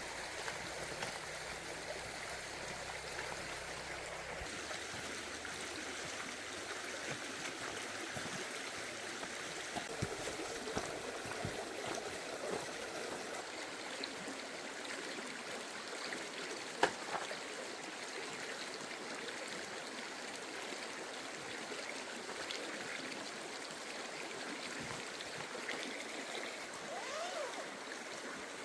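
A forest stream flowing and gurgling steadily over rocks, with one sharp click about two-thirds of the way through.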